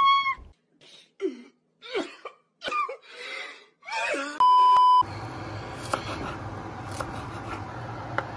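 A man's voice in short groaning, gasping utterances, then a single steady high beep about half a second long, about four and a half seconds in. After that comes a steady low hum of room noise with a few sharp knife taps on a wooden cutting board.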